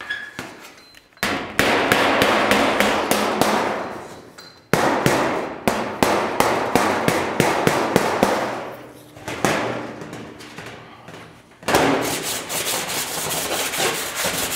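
Rapid hammer blows struck up from underneath a bare steel car bonnet, against a shot bag held on top, raising a low spot in the panel. The blows come in three long runs of several strikes a second.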